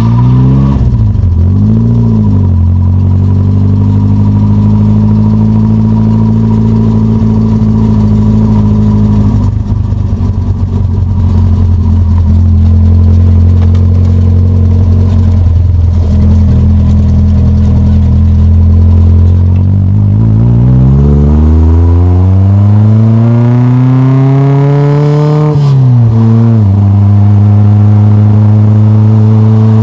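1972 Triumph Spitfire's four-cylinder engine heard right at the twin tailpipes of its Monza sports exhaust, cruising at a steady note. Near the end the note rises in one long pull for about five seconds, then drops sharply at a gear change and settles back to a steady cruise.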